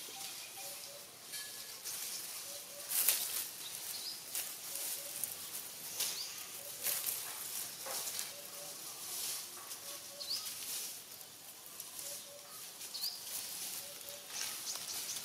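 Dry fallen leaves crackling and rustling irregularly as macaques move and forage in the leaf litter. Birds call in the background with low two-note calls repeating every second or so and a few short rising chirps.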